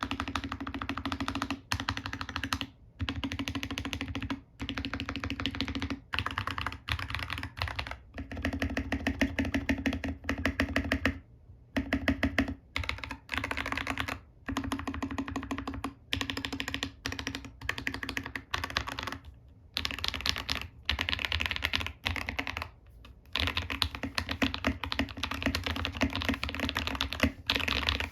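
Typing on a custom RK61 mechanical keyboard with lubed Akko Lavender tactile switches, dye-sub PBT OEM keycaps, a stock metal plate in an ABS plastic case, and lubed, band-aid-modded stabilizers: a thocky sound. Fast runs of key presses with short pauses between them.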